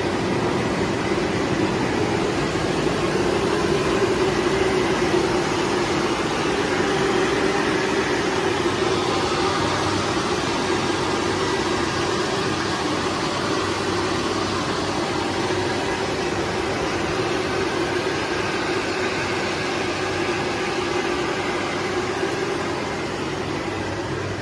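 Roll-to-roll film printing machine running: a continuous whir of rollers and drive motors with a steady low hum, easing slightly near the end.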